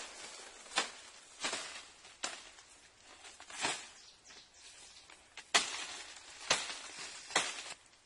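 Leafy branches and twigs rustling and crackling as they are handled and stepped among, a short crackle roughly every second at an uneven pace.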